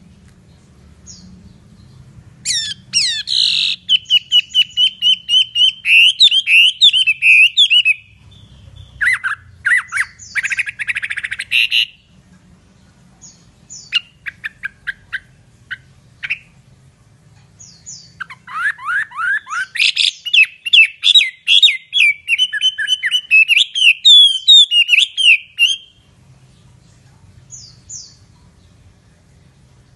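A hwamei (Chinese melodious laughingthrush) singing in three long, loud bouts of fast, varied whistled phrases, repeated notes and trills. Between the bouts come pauses with a few scattered single notes.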